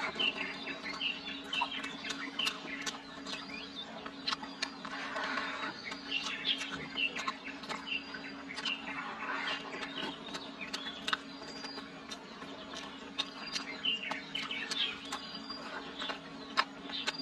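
Close-up chewing and lip-smacking while eating chili-fried bacon, with many small wet clicks. Birds chirp repeatedly in the background over a steady low hum.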